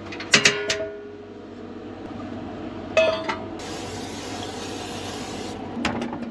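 A few sharp metal knocks as a frying pan is set on the gas stove's grate. Then aerosol cooking spray hisses into the pan for about two seconds. Near the end comes the click of a fridge door latch.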